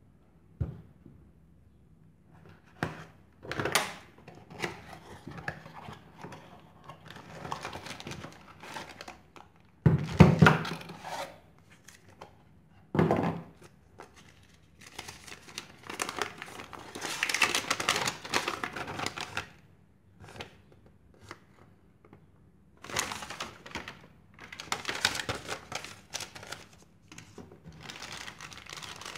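Clear plastic bag and paper packaging crinkling and rustling in irregular bursts as they are handled and opened, with a few sharp knocks and clicks of the packaging in between.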